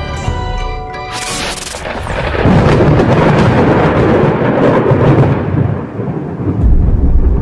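Thunder sound effect: the music stops about a second in, then a sharp crack, a long rolling rumble, and a deep low boom near the end.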